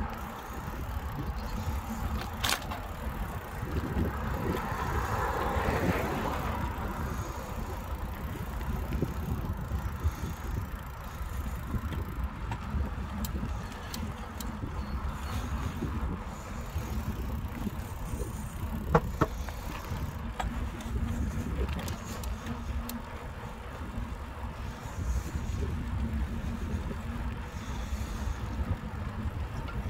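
Riding noise of a Carrera Kraken bicycle heard from a handlebar-mounted phone: a steady low rumble of wind and tyres on the pavement, with a few sharp clicks and knocks, the loudest about two-thirds of the way through.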